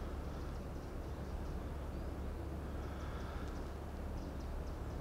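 Outdoor ambience: a steady low rumble with faint, scattered high chirps, typical of birds.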